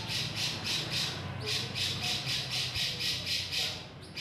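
Cucak jenggot (grey-cheeked bulbul) giving a harsh, rapid chattering call, about five rasping notes a second in two runs with a short break between them.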